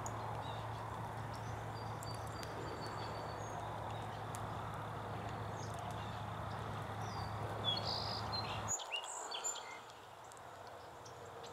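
Wood campfire burning under a hanging kettle, a steady rush with faint scattered crackles, with small birds chirping near the end. About nine seconds in the fire sound cuts off to a quieter outdoor background.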